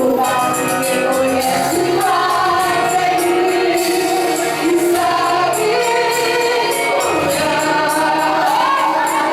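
Gospel worship song: voices singing with a sustained backing and a steady tambourine-like jingle.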